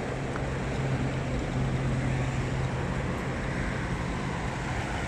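Steady roadside traffic noise, with the low hum of a nearby vehicle's engine that fades about three seconds in.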